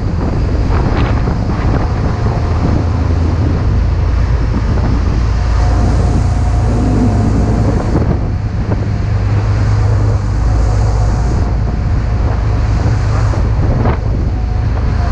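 Strong wind buffeting the microphone over the rush of waves and churning white water at a rescue vessel's stern, with the ship's engines droning low and steady underneath.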